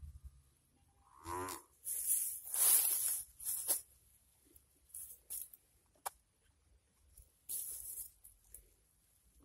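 A small electric propeller motor whining, its pitch dropping quickly about a second in as it spins down. Several short bursts of hissy noise follow, the loudest between two and three and a half seconds in.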